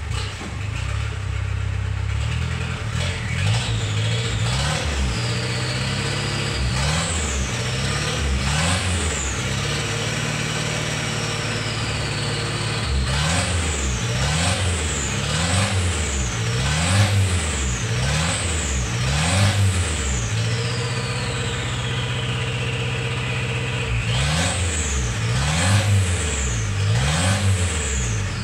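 2008 Ford Ranger's 3.0-litre four-cylinder turbo diesel engine revved repeatedly from idle, heard from inside the cab. It gives a run of quick blips, each rising and falling in pitch, with a short steady stretch and a slow fall in between.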